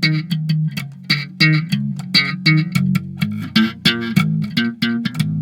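Electric bass played slap style through a Behringer V-Tone Bass BDI21 set for a slap tone: a quick riff of thumbed and popped notes, each with a sharp, bright click on the attack.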